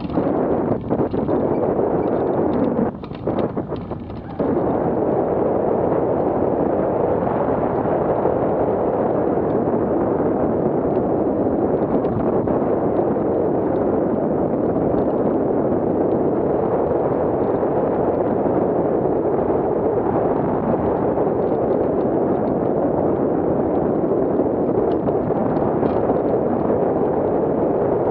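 Steady rushing wind from a hang glider's airflow, buffeting the microphone in flight. The level dips briefly about three seconds in, then picks up again.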